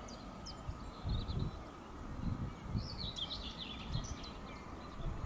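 Birds chirping and singing in short high phrases, loudest about three seconds in, over irregular low rumbles.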